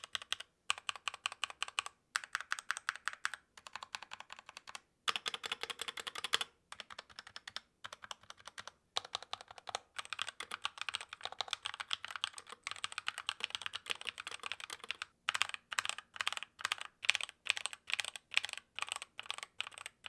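Typing on a Redragon K530 Pro 60% mechanical keyboard fitted with Epomaker Flamingo linear switches: keystrokes in quick runs with short pauses between, more spaced-out strokes near the end.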